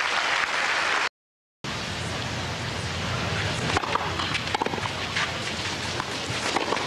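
Tennis crowd applauding, cut off abruptly by a brief dropout about a second in. Then a steady crowd hum with the sharp pops of racquets striking the ball in a rally.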